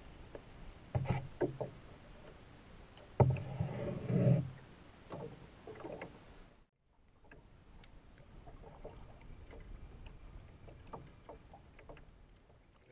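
Kayak being paddled, with several sharp knocks. About six and a half seconds in the sound cuts off abruptly to a quieter stretch of faint small ticks and water noise.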